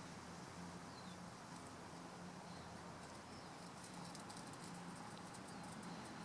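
Faint outdoor ambience with a few short bird chirps and, from about three seconds in, a light patter of small clicks and scuffles.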